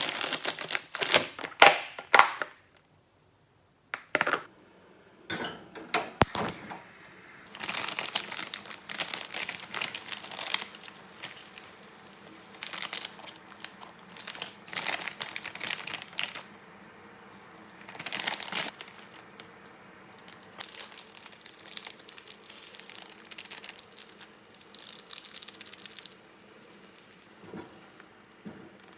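Kitchen handling sounds: packaging crinkling and dishes and utensils clinking, in separate short bursts with brief pauses.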